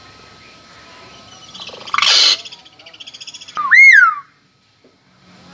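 Common hill myna calling: a loud harsh screech about two seconds in, a fast chattering run, then a loud whistle that rises and falls.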